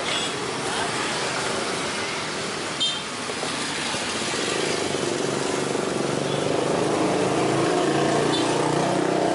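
Steady road traffic noise with motor vehicles passing, growing louder about halfway through, and a sharp click about three seconds in.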